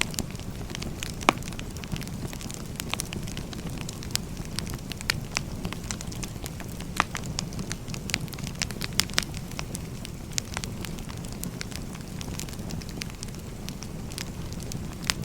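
Firewood burning: a steady low rush of flames with many sharp, irregular pops and crackles from the wood.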